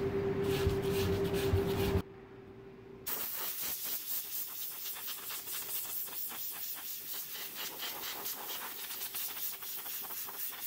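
Compressed air hissing from an air-compressor blow gun, pulsing as it blows sanding dust off an end-grain cutting board, starting about three seconds in. Before it, a steady machine hum stops abruptly about two seconds in.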